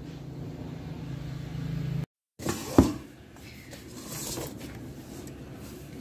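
Air fryer's fan running with a steady low hum that grows louder and then cuts off abruptly about two seconds in. A single sharp knock follows, then lighter handling noise.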